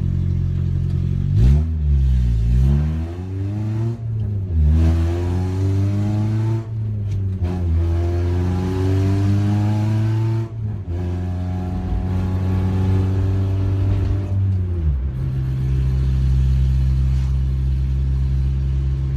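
Honda H23 2.3-litre four-cylinder engine in a CB7 Accord, heard from inside the cabin, pulling through the gears: the revs climb and drop at each shift several times, then hold at a steady drone for the last few seconds. It runs loud on an open exhaust, with no pipe yet fitted after the header.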